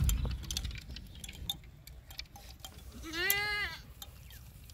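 A single bleat from a livestock animal about three seconds in, under a second long, rising then falling in pitch. Scattered light clicks and a low rumble at the start come from the runner's footfalls and rattling bamboo rods.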